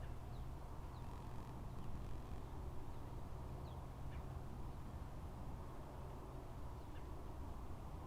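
Quiet woodland ambience: a low steady background rumble with a handful of faint, short, high chirps from small birds scattered through it.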